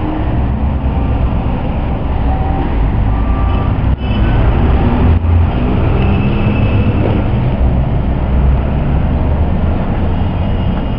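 Loud, steady low rumbling noise without distinct shots or knocks.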